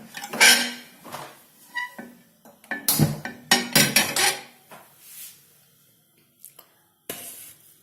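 Metal cookware clattering on a gas stove as a pan is set on the burner: several knocks and scrapes, then a short hiss near the end.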